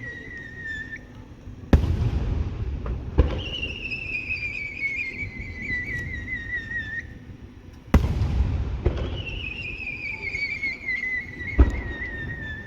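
Fireworks: long warbling whistles that slide down in pitch, three in turn, and four sharp bangs of shells bursting, each trailed by a low rumble.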